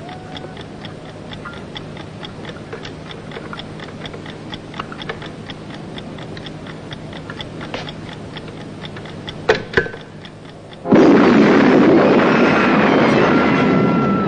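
Steady clock-like ticking, about three ticks a second, as a sound effect in a title sequence, with two sharp clicks near the end of the ticking. About eleven seconds in, a sudden loud burst of noise cuts in and carries on, with high gliding tones over it.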